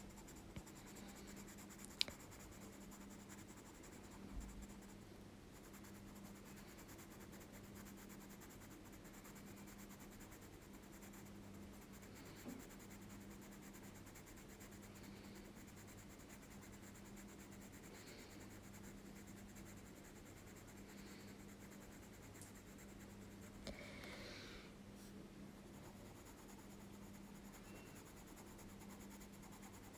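Faint, soft scratching of a pencil shading on paper, over a steady low hum, with a single click about two seconds in.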